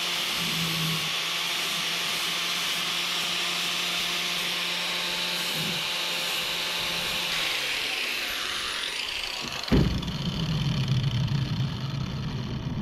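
Angle grinder with an 80-grit sanding disc grinding a steel hatchet head to shape it, a steady whine, then switched off about eight seconds in and winding down with a falling pitch. A thump near ten seconds as the grinder is set on the table, followed by low rumbling.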